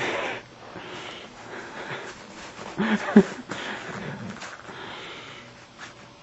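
A dog snuffling and snorting amid the shuffling, crunching noise of its booted steps in snow, with a brief low voice-like sound about three seconds in.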